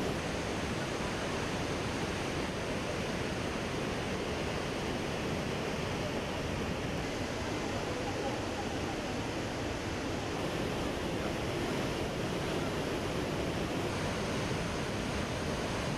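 Yellow River's Hukou Waterfall in summer flood, a great volume of silt-laden water pouring over the falls in a steady, unbroken rush.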